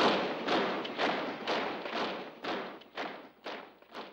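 A column of soldiers marching in step, their boots striking the pavement together about twice a second. The steps fade steadily and die away near the end.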